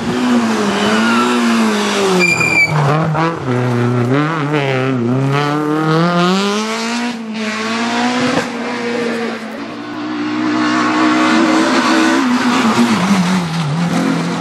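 Rally car engine at high revs, its pitch dropping and climbing again and again as the driver brakes, downshifts and accelerates through the gears. A brief high squeal sounds about two seconds in.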